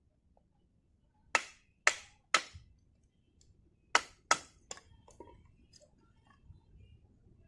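Six sharp knocks, in two quick groups of three about half a second apart.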